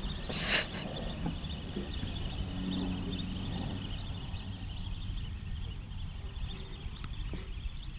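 Open riverbank ambience: a steady low wind rumble on the microphone, under a faint continuous high-pitched chatter. There is one short, sharp high sound about half a second in.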